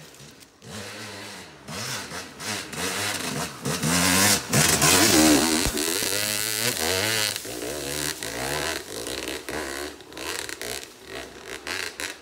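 Yamaha YZ250X two-stroke dirt bike revving hard and unevenly on a loose, steep climb, the revs rising and falling as the rear wheel spins and throws dirt and leaves for traction. It builds up, is loudest about halfway through, then fades.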